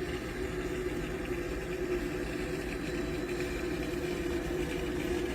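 Water pouring down steadily, with a steady low hum under it.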